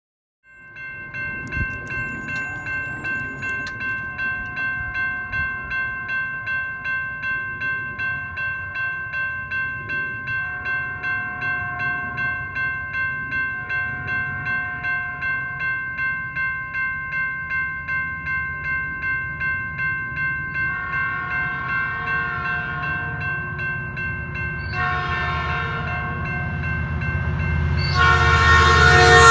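Grade crossing warning bell ringing steadily at about two strokes a second. Over the last third, an approaching Metrolink F59PHR locomotive sounds its horn in three blasts, the last the loudest, as the train's low rumble grows.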